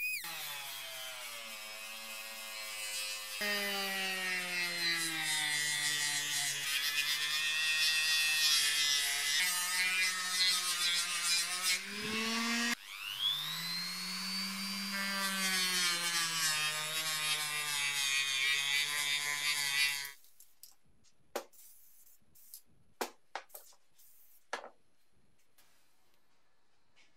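Die grinder with a small quick-change sanding disc grinding the steel jaw of a Stilson wrench, its motor whine wavering as the disc is pressed on. The motor spins down about halfway through, spins back up, then stops. A few light clicks and knocks follow as the wrench is handled in the vise.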